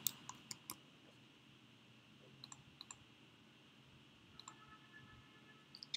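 Faint computer clicks over quiet room hiss: four quick clicks at the start, a few fainter ones about two and a half seconds in, and a short cluster near the end.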